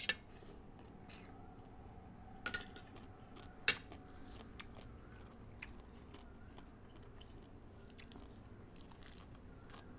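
Close-up chewing of a mouthful of papaya salad with pickled crab and shrimp: soft wet crunches and mouth clicks, with a couple of sharper clicks about two and a half and almost four seconds in.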